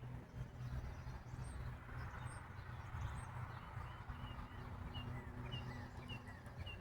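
A small bird chirping over and over in short high notes, about two a second later on, over a steady low rumble of outdoor background.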